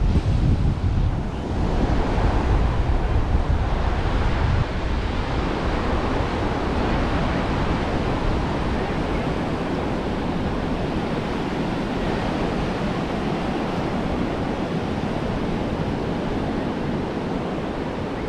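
Ocean surf washing steadily onto the beach, with wind buffeting the microphone in a low rumble for the first four or five seconds.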